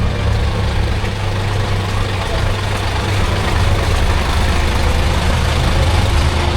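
Diesel engine of a classic bus idling with a steady low hum.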